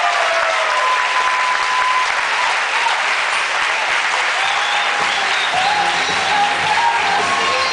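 Crowd applauding, with music coming in low from about five seconds in.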